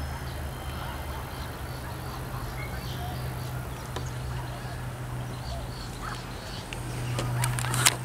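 Quiet outdoor ambience with faint, repeated bird chirps over a steady low hum. A few footsteps start near the end.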